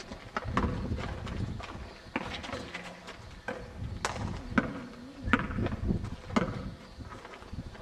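A basketball bouncing on an outdoor asphalt court with players' running footsteps, heard as irregular sharp knocks, plus a few brief shouts from the players.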